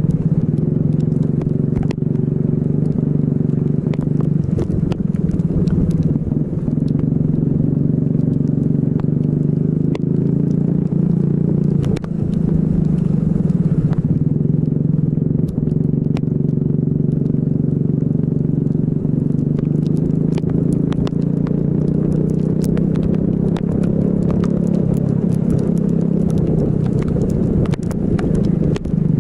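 Racing kart engine running hard, its pitch rising and falling as the kart speeds up and slows through the lap. Scattered sharp crackling ticks run over it, and the level dips briefly twice.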